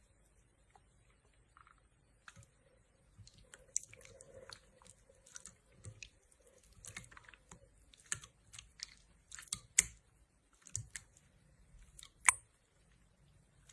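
Slime being squeezed and poked by hand, making irregular sticky clicks and small pops, a few of them sharper and louder.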